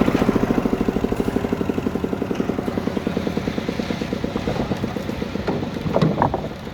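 An engine running with a fast, even chug of about eight to nine beats a second, slowly fading, with a brief short sound about six seconds in.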